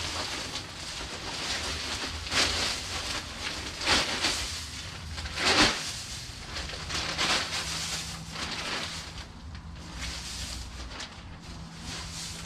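Loose wood shavings being poured and spread over a coop floor: a steady rustle with several louder rushes in the first half.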